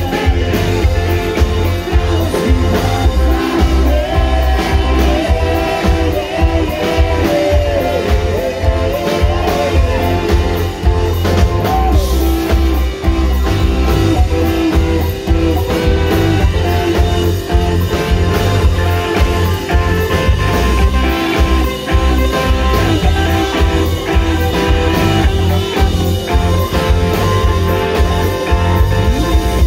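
A live rock band playing: electric guitars, bass guitar and a drum kit, with a heavy low end and a singer's voice over the top.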